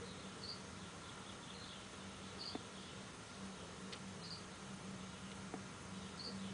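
Short, high-pitched chirps, one about every two seconds, over a steady low hum, with a couple of faint clicks.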